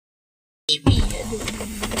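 Suzuki Jimny 4x4 running, a steady low rumble with light clicks and rattles, starting abruptly after silence about two-thirds of a second in.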